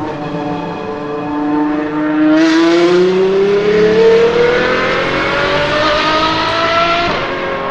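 Apollo IE's naturally aspirated V12 accelerating under load, its pitch climbing steadily for about seven seconds, then dropping sharply near the end.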